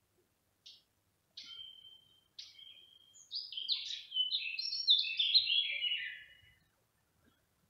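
A small songbird singing: a few short, high chirps, then a quick run of notes stepping down in pitch for about three seconds.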